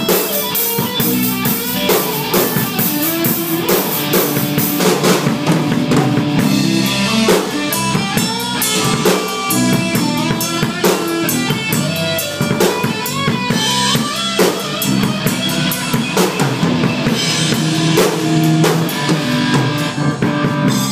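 A rock band playing live, the drum kit nearest and loudest, with bass drum, snare and cymbal hits over electric guitars, without a break.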